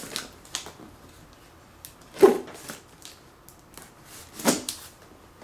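Knife cutting the packing tape along a cardboard box's seam: a few short rasps of the blade on the tape and cardboard, the loudest about two seconds in and another near the end.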